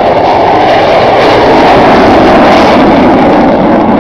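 RAAF F-111's twin jet engines roaring loudly and steadily as the aircraft goes around from a landing approach.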